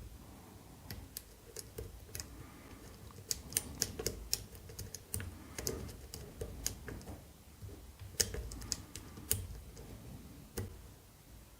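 Lock pick working the pins of a BASI K10 padlock: faint, irregular small clicks and scrapes of metal on metal as the pins are probed and set.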